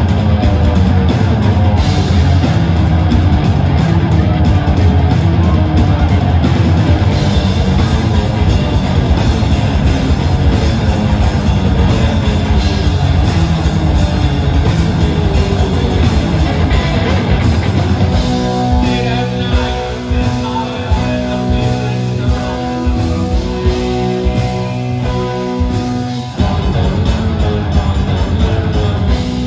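Live rock band playing with electric guitars, bass guitar and drum kit: a loud, heavy full-band section. About eighteen seconds in it drops to a lighter passage of sustained, ringing guitar notes over the drums.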